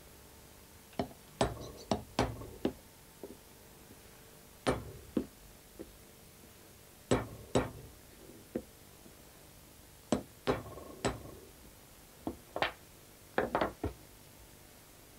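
Sharp knocks and clinks of hand tools on a workbench as a wooden dowel is worked. They come in irregular groups of two to five, and some leave a short ring.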